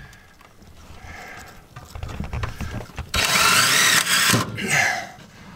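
Cordless drill-driver running in one burst of about a second, starting about three seconds in, its whine wavering in pitch, as it drives a screw to fasten a pipe bracket under the bus floor.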